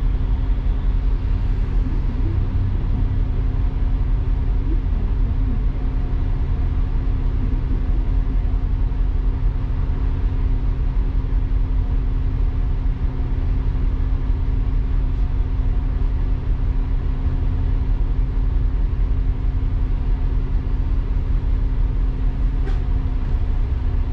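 Double-decker bus driving along, heard from its upper deck: a steady low engine and road rumble with a constant hum.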